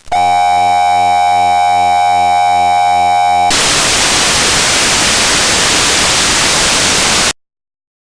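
A harsh, steady electronic buzz tone for about three and a half seconds, then loud static hiss for about four seconds that cuts off suddenly.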